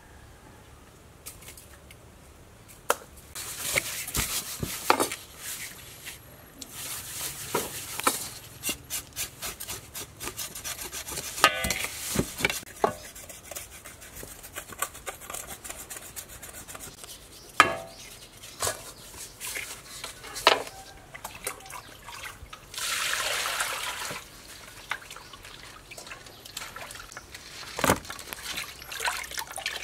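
Raw fish being washed by hand in a stainless steel bowl: wet rubbing and splashing with scattered knocks and clinks against the bowl. About three-quarters of the way through, water is poured from a plastic dipper into the bowl for about a second.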